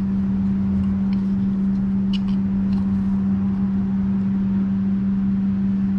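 A steady, loud low hum with a rumble beneath it, unchanging throughout, with a few faint light clicks over it.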